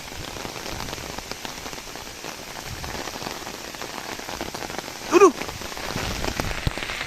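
Steady rain pattering down, a dense haze of small drop ticks. About five seconds in, a short voice sound briefly rises above it.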